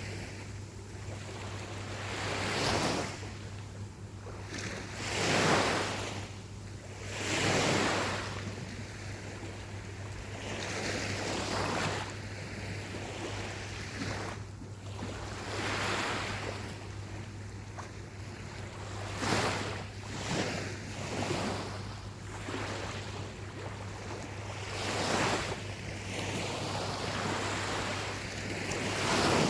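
Gentle ocean waves breaking and washing onto the shore, swelling and falling away every few seconds.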